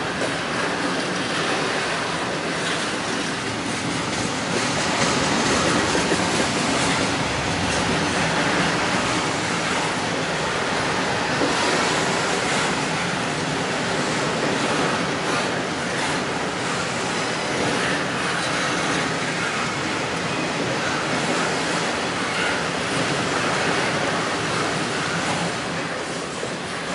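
Double-stack container train's well cars rolling past, with steel wheels running steadily on the rails.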